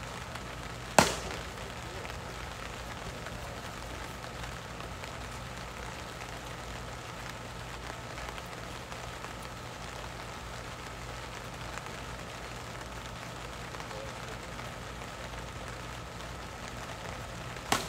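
Two sharp plastic cracks of a wiffle ball striking a bat or the strike-zone backstop, one about a second in and one near the end, over a steady outdoor background.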